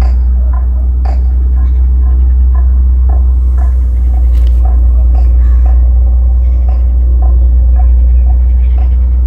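A loud, steady low rumble, with short sharp ticks scattered through it.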